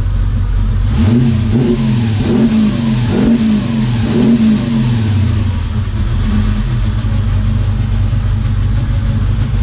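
Holden Commodore's engine blipped several times, its pitch rising and falling quickly, then settling to a steady idle.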